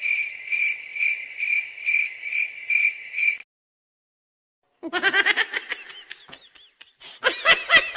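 Cricket chirping, a steady high chirp pulsing two to three times a second, typical of the 'crickets' sound effect for an awkward silence. It stops about three and a half seconds in. After a pause, a run of short high-pitched squeaks follows.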